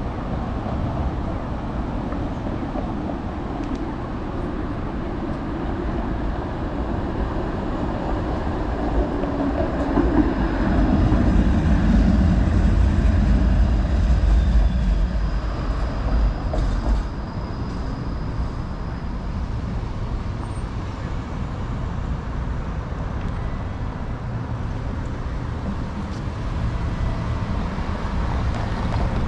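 Street traffic with a streetcar passing close by: a low rumble swells for several seconds with a falling tone, then fades away.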